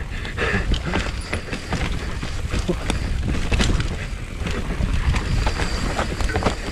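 A 29er enduro mountain bike rolling down a rough forest trail, heard from a helmet-mounted camera: a steady rumble of tyres and wind on the microphone, broken by frequent clicks and rattles from the bike over roots and rocks.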